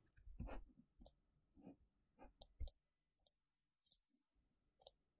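Faint computer mouse clicks: about half a dozen single clicks, irregularly spaced.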